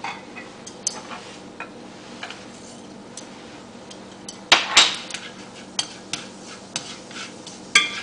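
Wooden chopsticks tapping and scraping in a nonstick pan, stirring cumin seeds in hot oil: scattered light clicks, with a few sharp clacks about halfway through and again near the end.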